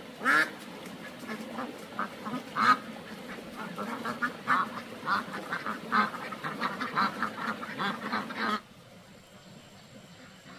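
Ducks quacking, many short calls close together, cutting off suddenly about eight and a half seconds in.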